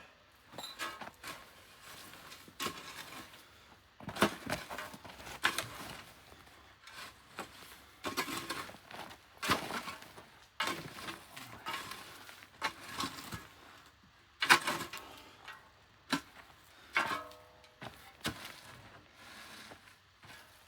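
Irregular knocks, clunks and scrapes of hard objects being handled, one to three a second, with a short squeak near the end.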